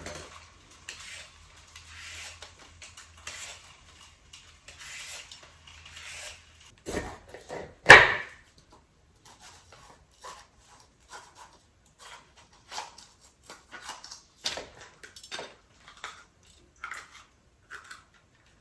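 Kitchen utensils and dishes being handled: scattered light clicks and clatters, with two louder knocks around seven and eight seconds in.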